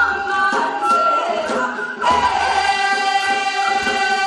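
A large group of folk singers singing a Korean folk song (minyo) together in unison: a few short phrases, then a long held note from about two seconds in.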